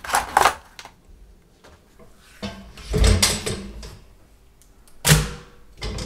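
Metal pedal bin in use. Its lid knocks open about two and a half seconds in, and it shuts with a loud thump about five seconds in.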